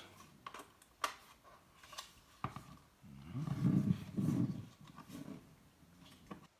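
Sharp clicks and taps of the plastic radio housing being handled and pried apart. About halfway through comes a loud, low, drawn-out grunt from a man straining at it.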